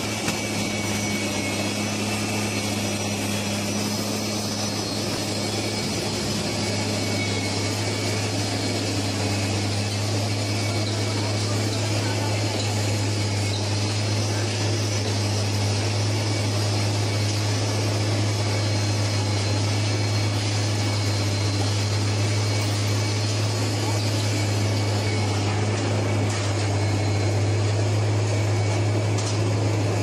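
Track-laying machine running with a steady low drone.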